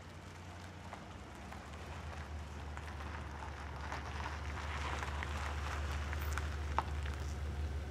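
Pontiac Aztek pulling up slowly on a gravel road: a low engine hum that grows louder as it approaches, with tyres crunching over the gravel. There is a sharp click near the end.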